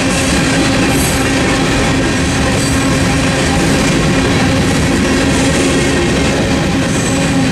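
Freight train of covered hopper cars rolling past at speed, with a steady loud rumble and clatter of steel wheels on the rails and a steady tone running along with it.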